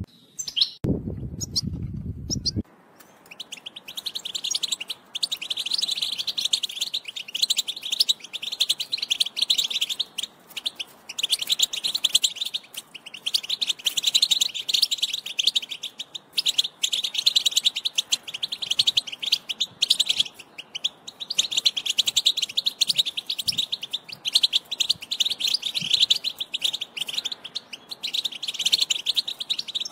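European goldfinch singing: long runs of rapid, high twittering notes in phrases broken by short pauses, starting about three seconds in after a brief low rumble.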